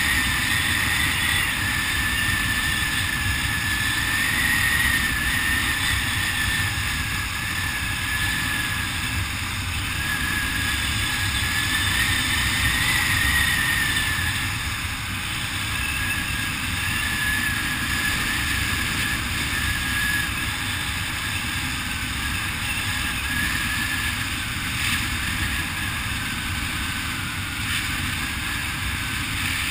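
Steady wind rushing over a helmet camera's microphone during a parachute descent under canopy, with a thin wavering whistle above the rush.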